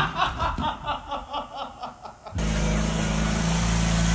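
A person laughing in quick repeated pulses, about five a second, fading away. About two seconds in, the sound cuts abruptly to the steady running of a riding garden tractor's engine.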